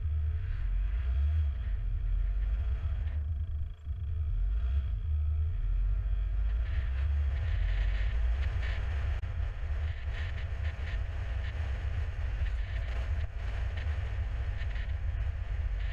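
Steady low rumble of a car driving at town speed, with road and tyre noise, briefly dipping about four seconds in.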